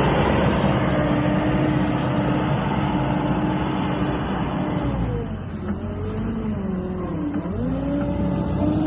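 John Deere 317G skid steer's diesel engine running steadily at high revs, its engine speed dipping and recovering twice in the second half.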